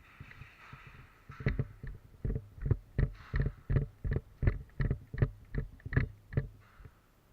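Running footsteps: about fourteen heavy thuds at a steady jog of nearly three steps a second, starting about a second and a half in and stopping shortly before the end.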